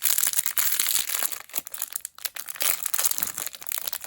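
A crinkly plastic blind-bag wrapper around a small toy figure being handled and torn open, a dense irregular crackling with no let-up.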